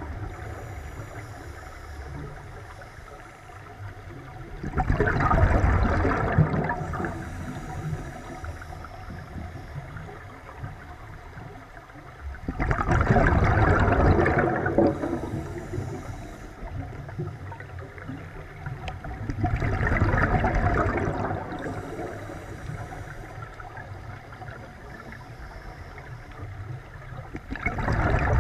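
Scuba diver's exhaled regulator bubbles rushing past the underwater camera housing, in four muffled bursts about seven seconds apart, with a quieter watery hiss in between.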